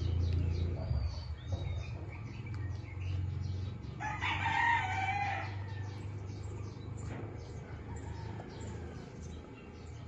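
A rooster crowing once, for under two seconds, about four seconds in, over a steady low rumble and faint small-bird chirps.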